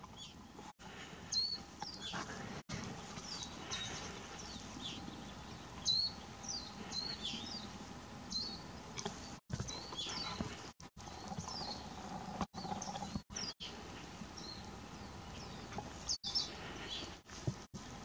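Songbirds calling: short high chirps and quick sliding whistles, scattered irregularly, over a low steady background hiss. The sound drops out completely for an instant several times.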